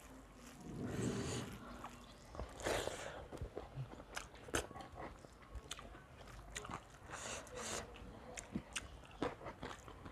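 Close-up eating sounds: chewing and biting food, with many short sharp clicks and a few brief rustling bursts, along with fingers scraping through rice on steel plates.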